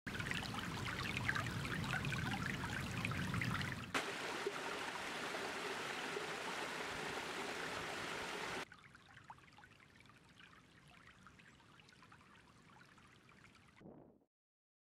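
Shallow creek running over stones, changing at about four seconds to a small cascade splashing over rocks. A little past halfway it gives way to a much fainter steady background, which cuts off suddenly near the end.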